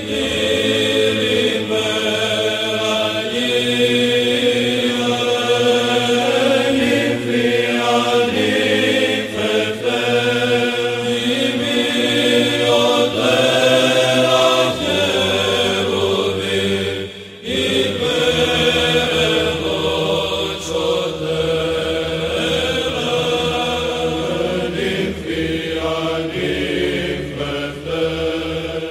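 Byzantine chant: male voices singing a slow, melismatic hymn melody over a held low drone (ison), with a brief break in the singing a little past halfway.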